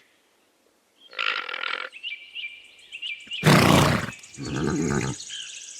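Alpaca calls: a short call about a second in, then a loud harsh grunt-like call and a second lower one shortly after, with faint chirping in between.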